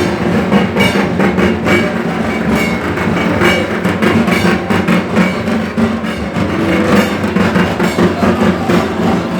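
Music with busy, driving drum percussion and no singing.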